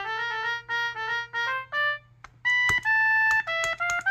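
Homemade synthesizer pen playing its electronic trumpet voice through a small amp. A quick run of short notes falls in pitch at the end, then after a short pause comes a slower phrase with longer held notes.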